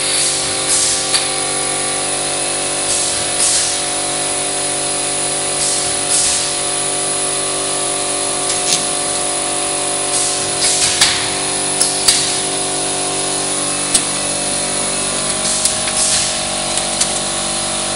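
Roll forming machine for drywall metal profiles running with a steady many-toned mechanical hum. Short hissing bursts come every few seconds, and a few sharp clicks are heard.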